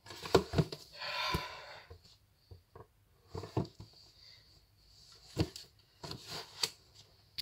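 A large book being handled and put back in place: several sharp knocks and bumps, with a sliding, rustling scrape about a second in and again near the end.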